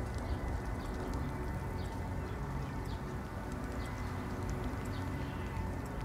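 Soundtrack of a screened film: a steady low rumble and hiss, with faint short high chirps now and then.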